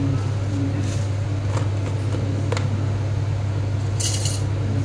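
Steady low mechanical hum, with two faint clicks partway through and a short rustling hiss near the end.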